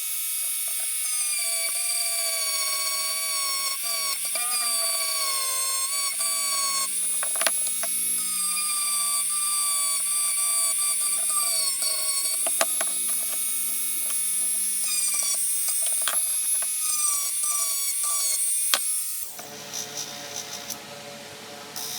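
High-speed rotary tool whining as it works the metal of a pair of pliers, its pitch wavering up and down as it bears on the work, with a few sharp ticks. About nineteen seconds in it gives way to a quieter, lower hum.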